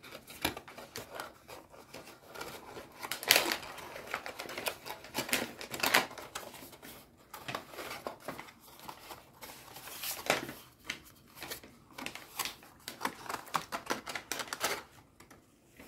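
Handling of a small folded cardboard box and stickers: irregular light taps, clicks and rustles, with louder knocks about three, six and ten seconds in.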